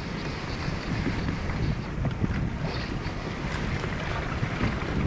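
Wind buffeting the microphone over choppy seawater lapping around a small boat, a steady gusting rumble.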